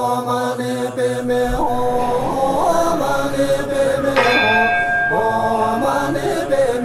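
Buddhist mantra chanting by voices, held on long gliding tones, with a bell ringing about four seconds in.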